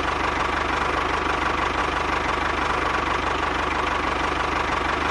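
Engine running steadily at an even speed, with a fast regular knocking beat.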